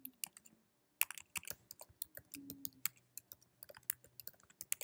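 Typing on a computer keyboard: a quick, uneven run of key clicks, sparse at first and steady from about a second in.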